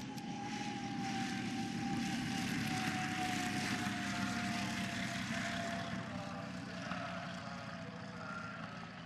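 P-51D Mustang's Packard Merlin V12 engine and propeller running as the fighter rolls along a grass strip and passes close by. The sound swells over the first few seconds, then fades as it moves away, its whine sliding down in pitch.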